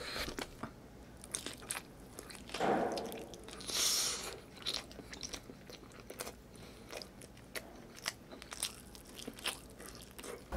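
Close-miked chewing and biting of braised chicken adobo with rice eaten by hand, full of sharp wet mouth clicks and lip smacks. Two longer, louder mouth noises come about three and four seconds in.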